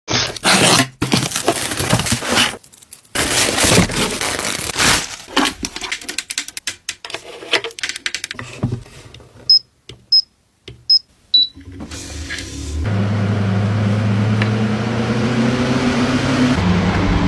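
Rustling and clicking from handling, then four short high beeps from the FeelKen desk fan's control buttons. After that the fan's motor starts up and runs with a steady hum that creeps up a little in pitch.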